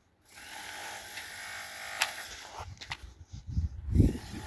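A small motor whirring steadily for about two seconds, with a sharp click near the end of the whir, followed by irregular low thuds.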